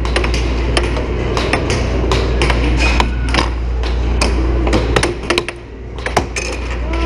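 Air hockey puck and mallets clacking in a fast rally: sharp, irregular knocks several a second as the puck strikes the mallets and the table's side rails, over a steady low hum.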